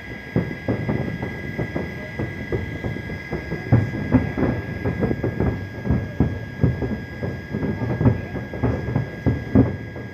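A fireworks display going off: a dense, irregular run of bangs and pops, several a second, with no let-up, and a faint steady high tone underneath.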